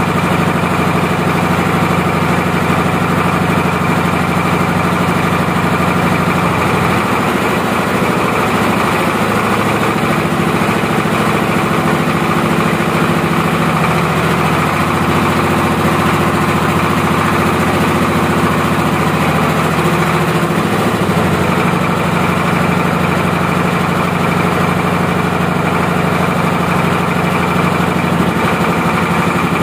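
Single-cylinder horizontal diesel engine running while it warms up. Its pitch changes about seven seconds in and settles back about twenty seconds in.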